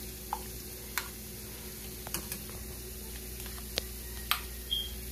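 Metal ladle clinking lightly against a stainless saucepan and a ceramic mug as hot chilate is ladled into the mug: a handful of scattered light clicks over a steady low hum.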